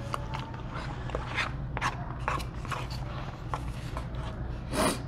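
Someone eating at the table: short clicks and knocks of utensils on dishes, and chewing, over a steady low hum. Near the end comes one short, louder rush of noise.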